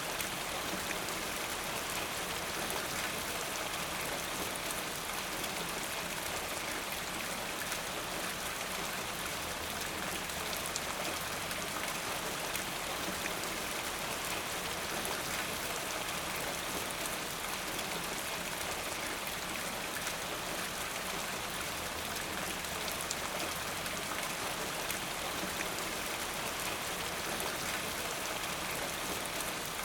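Steady rain falling: a dense, even patter of drops that holds constant throughout.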